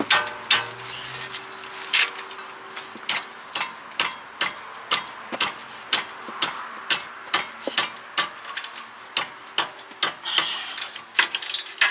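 Socket ratchet clicking in a steady rhythm, about two clicks a second, as it undoes a fairly tight 15 mm brake caliper support bracket bolt.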